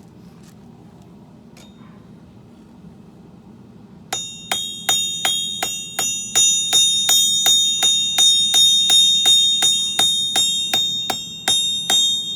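Hammer blows on hot steel over an anvil, starting about four seconds in: a steady run of about three strikes a second, each leaving a bright bell-like ring of the anvil. Before the strikes, a steady low rumble, typical of a propane forge burner.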